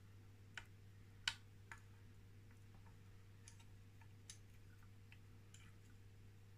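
Near silence over a faint steady low hum, broken by a few light, scattered clicks of small metal engine parts being handled, the loudest about a second in.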